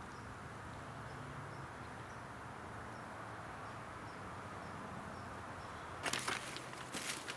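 Steady outdoor background hiss with a faint high chirp repeating about twice a second. About six seconds in, a run of sharp crackles and rustles begins.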